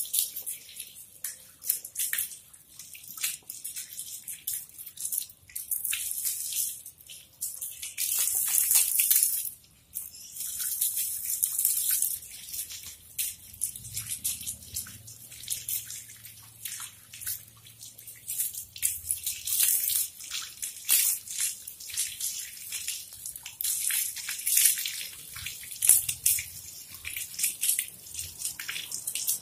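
Water from a garden hose spray nozzle spraying and splashing onto a wet dog's coat and the wet patio in uneven gushes, with a steady spray for about two seconds that cuts off suddenly about ten seconds in.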